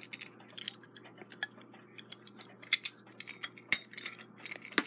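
Small metal clicks and clinks of a steel hand tool working against a clock's brass strike-side great wheel and arbor, as the wheel is taken off the mainspring arbor. The clicks are scattered and come faster and louder in the second half, with a sharper click near the end.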